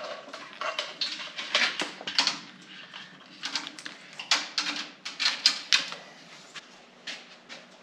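Hands working wiring and zip ties: irregular clicks, rattles and short scratchy strokes.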